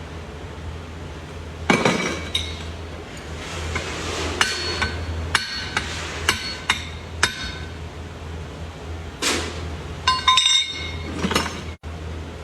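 Forging hammer striking steel on an anvil in irregular blows, each with a short metallic ring, with a quick run of lighter taps near the end.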